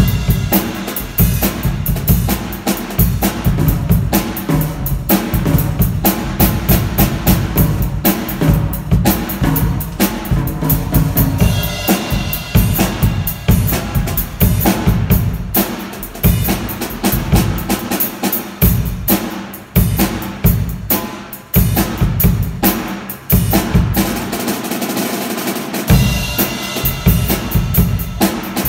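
Yamaha drum kit played live: quick, busy bass drum, snare and cymbal strokes. The bass drum drops out for a couple of seconds near the end, then comes back in.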